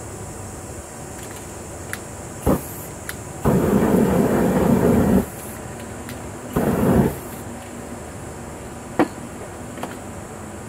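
Aerosol spray-paint can spraying in two hissing bursts, one of about a second and a half and a shorter one about a second later. A sharp click comes before them and a couple of small knocks of cans being handled follow.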